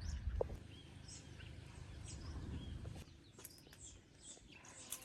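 Wild birds chirping and calling outdoors, with many short high-pitched calls scattered through, over a low background rumble that eases after about three seconds.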